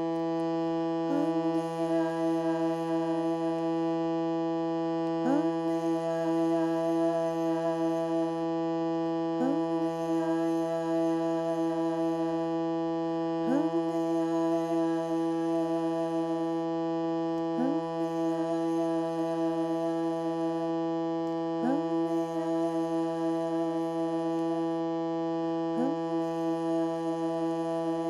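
A hand-pumped reed instrument holding a steady, many-toned drone, with a short upward pitch swoop about every four seconds.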